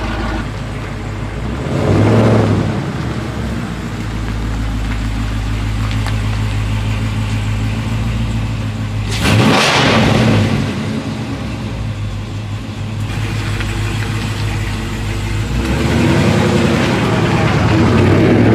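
2021 Dodge Charger Scat Pack's 6.4-litre HEMI V8, with long-tube headers, high-flow cats and mid-pipe resonators deleted, running steadily, with two brief loud swells about two and nine seconds in and the engine note rising again near the end.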